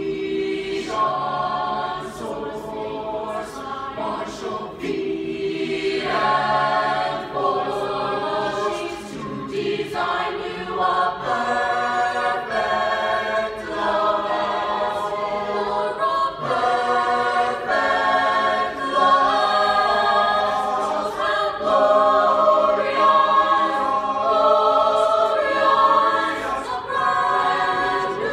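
Mixed-voice show choir singing held chords in several parts, changing chord every second or two.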